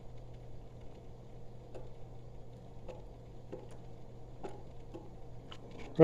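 Faint steady low hum of the water heater's circulating pump, with about five light, irregular ticks.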